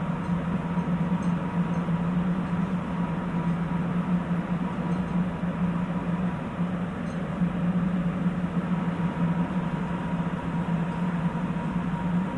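Interior running noise of a Sapporo Municipal Subway 8000-series rubber-tyred train car: a steady low drone with a thin high whine held at one pitch, the train running between stations at constant speed.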